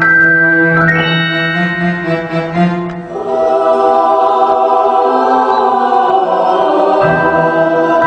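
Music of long held chords, with a new, fuller chord coming in about three seconds in.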